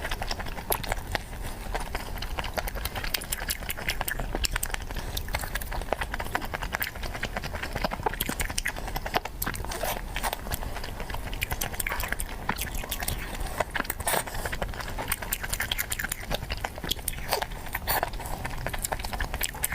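Close-miked chewing of squid: constant wet smacking and sharp clicks from the mouth, with no break.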